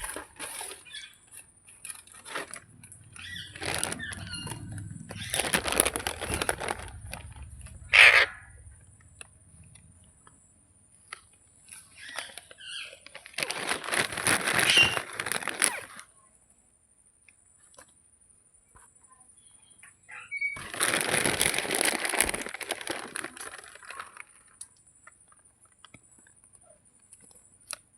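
Ringneck parrot flapping its wings in three bursts of a few seconds each, with one short, sharp squawk about eight seconds in.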